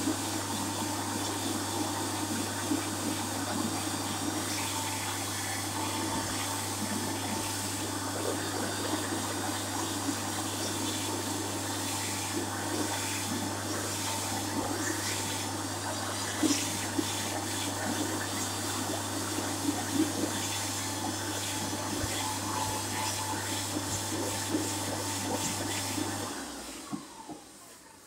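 Hyco push-button hand dryer running, a steady blowing rush over a constant low motor hum as hands are held under the outlet. It cuts off near the end at the close of its timed cycle.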